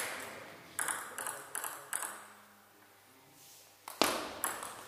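Table tennis ball making a few light clicks about a second in, then quiet. Near the end a serve opens a rally, with quick sharp clicks of the ball off bat and table.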